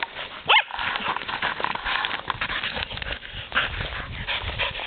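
A dog gives one short, high yelp that sweeps upward about half a second in. Steady scratching and scuffling from the dogs working the armadillo follows.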